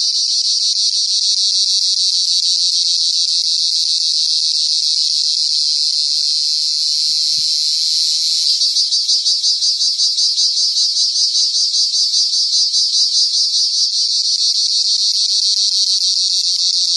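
Cırcır böceği (cricket) singing close to the microphone: a loud, continuous shrill buzz that pulses about four times a second, the pulsing growing sharper about halfway through.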